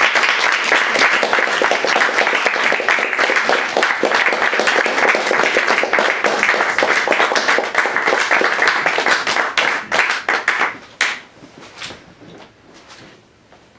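Audience applauding steadily, then dying away with a few last claps about eleven seconds in.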